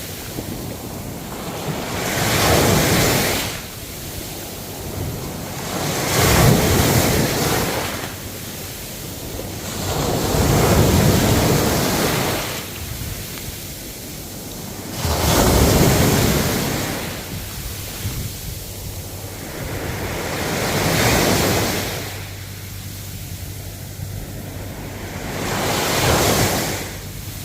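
Ocean waves breaking and washing up the shore. Each wave swells and fades, one about every four to five seconds, six in all.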